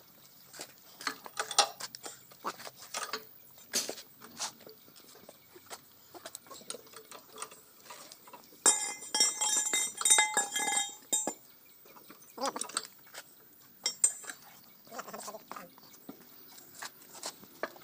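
Metal clinks and knocks of hand tools working on a backhoe loader's bucket hydraulic cylinder rod and piston. For about two and a half seconds in the middle there is a louder, harsh pitched sound.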